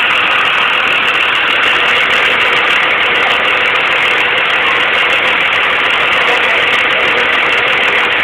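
School bus engine idling, a steady, unbroken running sound close by.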